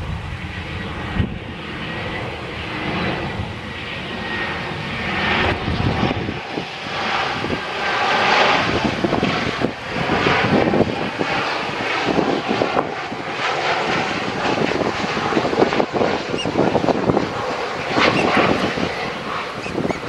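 Twin turbofan engines of an Embraer E-Jet airliner on final approach, a steady jet roar with a faint whine as it passes and descends to the runway.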